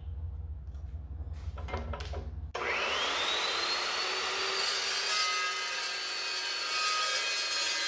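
A few light clicks and knocks from the vise, then about two and a half seconds in the Evolution S380 chop saw's motor starts with a rising whine that levels off. Its tungsten-carbide-tipped blade then cuts steadily into 3/16-inch steel angle iron.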